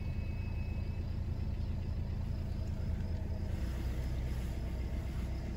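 Steady low rumble of a car driving slowly on a narrow gravel road, heard from inside the cabin. About three and a half seconds in, the low drone changes slightly and a faint hiss comes up.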